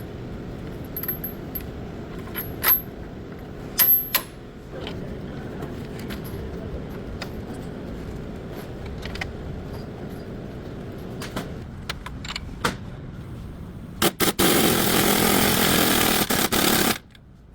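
Sharp metallic clinks, like tools or parts being handled, over a steady low running noise, then a loud rushing noise for about three seconds near the end.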